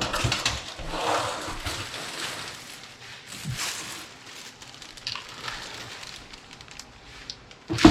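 Irregular rustling and crackling of objects being handled, with a sharp knock right at the start and another near the end, echoing in an empty room.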